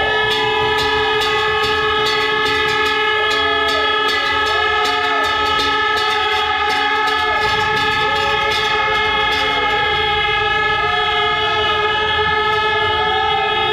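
Train-style air horn sounded by a ceiling pull cord, held as one long, loud chord of several notes that does not let up.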